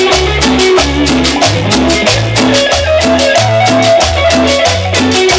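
Cumbia music: a bass line that alternates between two low notes under quick, even percussion strokes.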